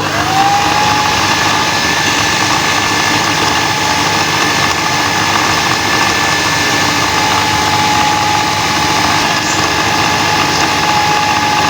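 Electric jug blender running at full speed, grinding boiled chana dal and beef into a paste. The motor spins up sharply at the start, then holds a steady whine over the churning of the thick mix.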